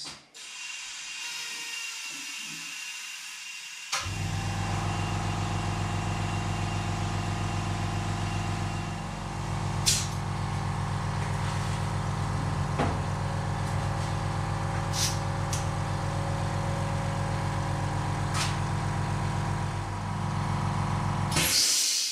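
An air compressor starts about four seconds in and runs steadily while inflating a car tire back up to about three bar, after a faint hiss of air. It stops near the end, followed by a short hiss of air.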